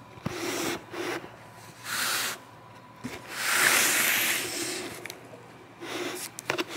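Cardboard box with clear plastic tape or wrap being handled and rubbed right against the microphone: a run of scraping, rustling rubs, the longest and loudest about halfway through, with a few sharp clicks near the end.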